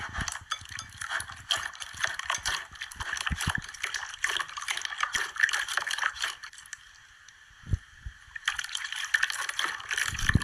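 Watery slime being squished and worked, dense wet clicking and crackling with a brief lull in the middle and one low thump.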